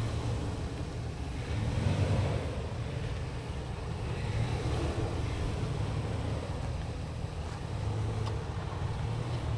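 Off-road SUV's engine running at low speed, a low steady rumble.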